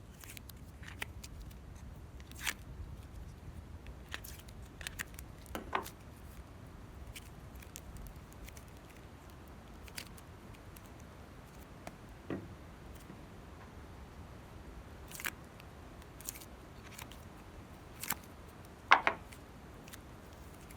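Clear slime being handled and mixed by hand, giving scattered sticky pops and clicks at uneven intervals, the loudest a quick double pop near the end.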